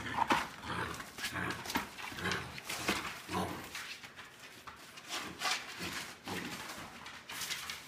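A small dog worrying a heavy work boot on a concrete floor: the boot scuffs, scrapes and knocks about in short uneven bursts, with a few brief low growls from the dog.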